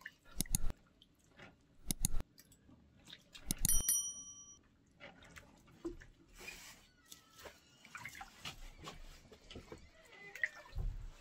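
Water splashing and dripping in a plastic basin as raw meat is rinsed and squeezed by hand, in scattered short splashes. A brief metallic ring sounds just under four seconds in.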